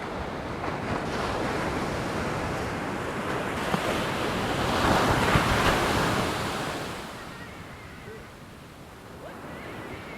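Ocean surf: a wave swells and breaks, loudest about halfway through, then washes out and fades.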